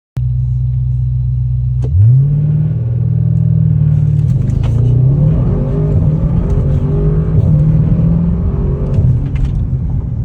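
Audi C8 RS6's twin-turbo V8 engine starts abruptly at a steady drone, then revs up about two seconds in and keeps rising and falling in pitch.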